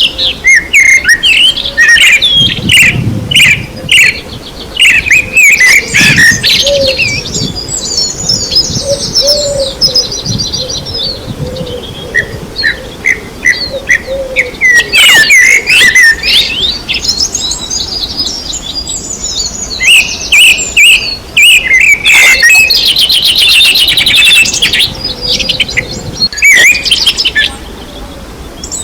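Several songbirds chirping and trilling, with quick repeated notes and rapid rattling trills overlapping throughout.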